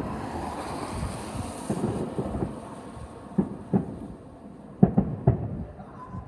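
Fireworks going off: a fizzing, crackling hiss, then five sharp bangs in quick succession in the second half.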